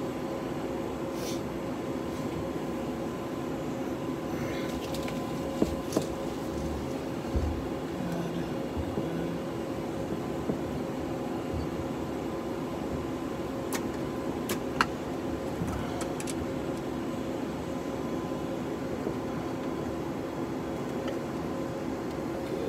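Steady hum and whine in the cockpit of an Embraer jet with its APU running and supplying electrical power. Several sharp clicks of overhead-panel switches and knobs being worked stand out over the hum.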